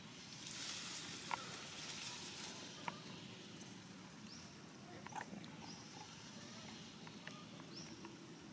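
Faint outdoor ambience: a brief rustle early on, a few sharp clicks, and three short high calls that rise and then hold.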